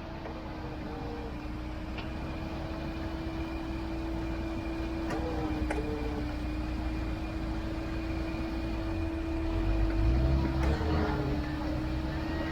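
Electric winch motor whining steadily under load, its pitch sagging briefly twice as the pull tightens, over a vehicle engine running that grows louder near the end.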